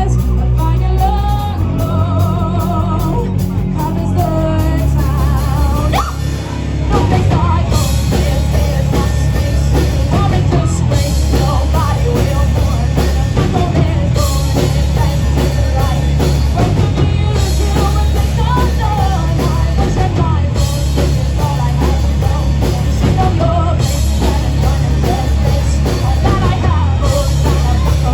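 Live rock band playing with a sung vocal over guitar and bass. About six seconds in, the full drum kit comes in with cymbals and the band plays on at full volume.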